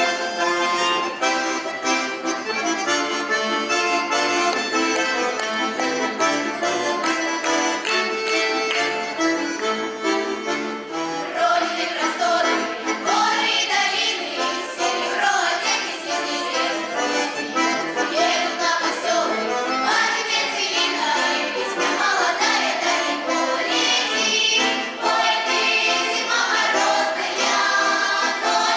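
Russian folk music led by an accordion, lively and continuous. A group of young voices joins in singing about twelve seconds in.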